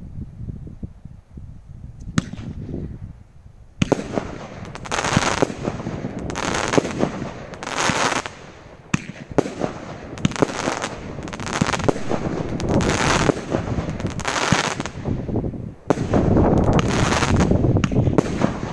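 Large-bore firework cake (Epic Fireworks Diablo, 19 shots) firing. After a few quieter seconds, shots go off about once a second, each a sharp bang followed by the burst's noisy tail. The firing turns louder and almost continuous near the end.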